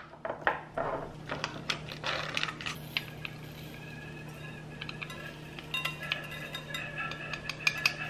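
Glass jar of instant coffee being opened and granules tipped into a plastic measuring spoon over a stainless steel bowl: small clicks, light clinks and the rattle of granules.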